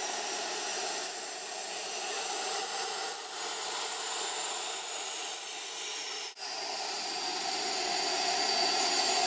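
Miniature turbine engine of a radio-controlled L-39 Albatros model jet running at low power after landing: a steady high-pitched whine over an airy rush. The pitch rises slightly, drops about six seconds in, then holds at a lower idle.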